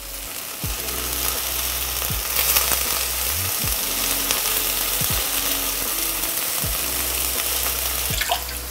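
Sliced vegetables pan-frying in coconut oil: a steady sizzle.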